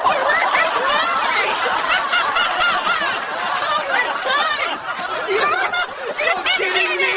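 A crowd of people laughing together, many voices overlapping steadily.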